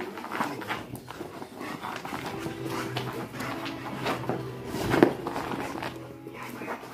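Pit bull romping around on carpet: quick thuds and scuffles of its paws, a low held sound through the middle, and a sharper thump about five seconds in.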